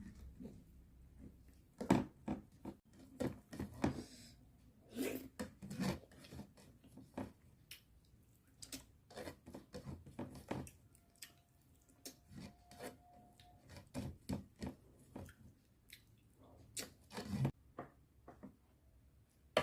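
Close-miked eating: irregular chewing with wet mouth clicks and crackles of food being bitten and torn.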